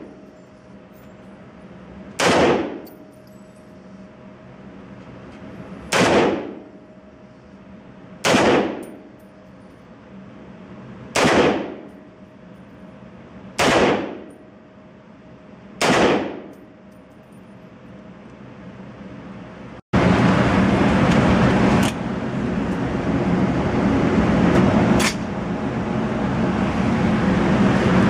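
Crusader Broadsword .308 battle rifle fired in slow aimed shots, six sharp reports about two to three seconds apart, each with a short echo off the indoor range walls. About twenty seconds in the sound cuts to a loud, steady rushing noise with two more sharp cracks in it.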